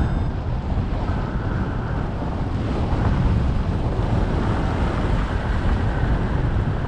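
Steady wind rushing over the microphone of a camera worn by a paraglider pilot in flight: airflow noise with a strong low rumble.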